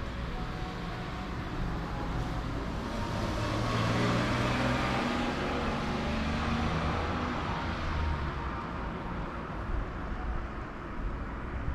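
A motor vehicle passing by on the street, its engine and tyre noise growing to a peak around the middle and then fading away.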